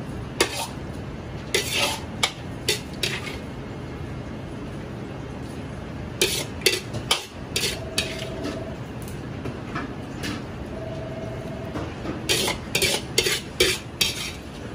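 Metal ladle scraping and knocking against a steel wok in clusters of quick strokes, as food is scooped out of it, over a steady low background noise.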